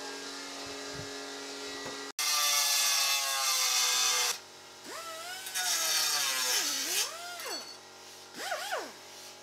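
Pneumatic cut-off tool cutting a sheet-metal rust repair panel: a steady hum, then a sudden loud hiss-and-grind about two seconds in, a second loud cut with the whine rising and falling as the load changes, and a short rev near the end.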